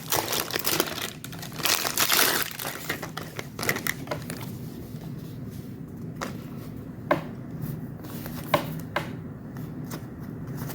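Packaging crinkling and rustling as unboxed merchandise is handled, for about the first four seconds. After that it goes quieter, with a few sharp light taps.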